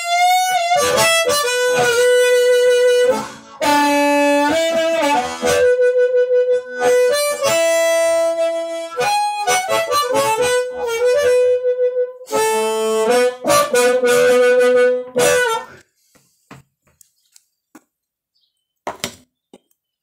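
Harmonica played through a silicon Fuzz Face-style fuzz pedal into a small Quilter amp head: a heavily saturated, compressed lo-fi tone, with held notes and quick note changes and bends. The playing stops about three-quarters of the way in, and a couple of short clicks follow near the end.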